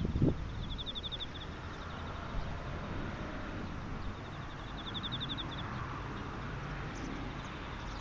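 Insects chirping: two trills of rapid pulses, each about a second long, over a faint steady trilling, with wind rumbling on the microphone and gusting near the start.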